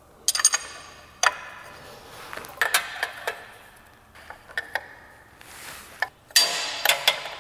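Hand tools and small metal motorcycle hardware clinking and clattering during assembly work: a string of sharp metallic clinks with a brief ring, some in quick clusters, and a busier run of rattling near the end.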